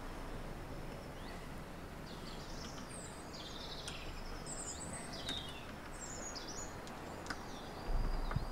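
Small birds chirping and twittering over a faint steady outdoor hush, with a few light clicks from the chainsaw's side cover being handled.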